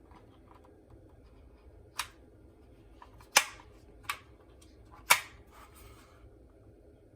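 Four sharp clacks, the second and fourth loudest, among a few faint small clicks: a keyboard and its packaging being handled and set down during unboxing.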